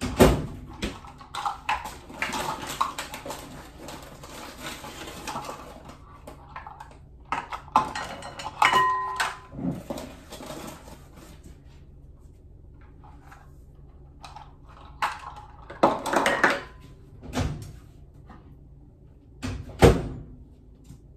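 Over-the-range microwave door clicking open and shut, with a couple of short electronic beeps, amid knocks of dishes on a counter; the loudest knocks come right at the start and about 20 seconds in.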